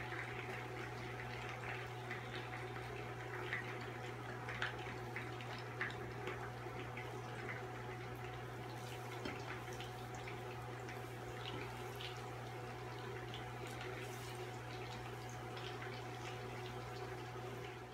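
Butter and melting marshmallows sizzling softly in a non-stick pan on a NuWave induction cooktop, over the cooktop's steady low hum, with light scattered scrapes and ticks of a plastic spatula stirring.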